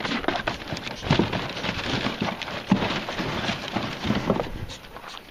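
Cardboard boxes rustling, crunching and bumping in quick, irregular bursts as a puppy digs and scrambles through a pile of them.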